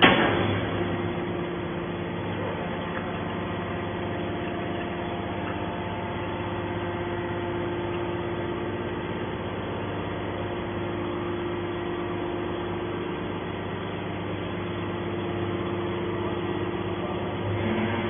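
Hydraulic scrap-metal baler's power unit running with a steady hum as the ram pushes the finished bale out of the press box. A loud knock right at the start.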